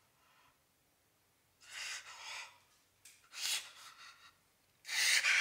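A man's ragged, upset breathing: a few heavy gasps and exhales, then a loud harsh breath near the end as he works up to an outburst.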